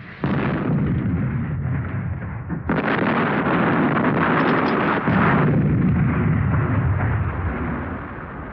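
Heavy explosions on an archival war-film soundtrack: a blast about a quarter second in and another near the three-second mark, each rumbling on for several seconds, the rumble swelling again around the middle. These fit demolition charges blowing up roads, bridges and railways.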